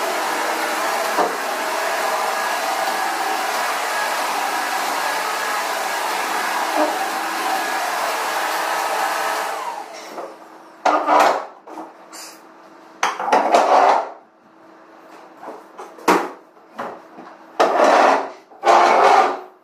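Upright vacuum cleaner running steadily, switched off about halfway through with its motor winding down. After it come several short, loud, irregularly spaced knocks and scrapes.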